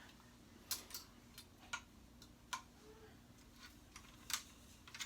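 Faint, irregular light clicks and taps as parts of a ring light and its stand are handled and fitted together during assembly.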